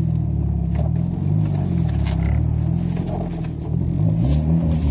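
A 2003 Dodge Neon SX's 2.0-litre four-cylinder engine, fitted with a custom exhaust pipe, accelerating hard from a takeoff, heard inside the cabin with the windows up. The engine note climbs, drops back once about three seconds in, then climbs steeply again.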